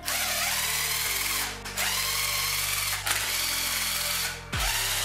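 Cordless power driver spinning bolts out of the top of a motorcycle engine's cylinder head through a long extension. It runs four times, about a second each, with short pauses between.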